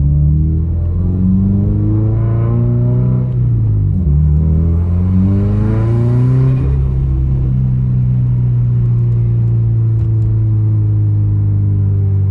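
Subaru WRX's turbocharged 2.0-litre flat-four (FA20DIT) pulling through the gears, heard from inside the car with the windows down. Engine pitch climbs, drops about four seconds in and again near seven seconds as it shifts up, then holds steady at cruise.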